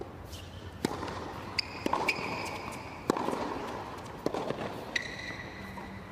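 Tennis serve and baseline rally on a hard court: sharp racket-on-ball hits about a second apart, with ball bounces and brief shoe squeaks on the court.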